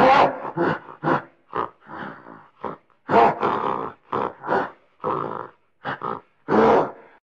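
Gorilla giving a string of short, irregular grunts and hoarse barks, about three a second, with the loudest at the start, about three seconds in and near the end.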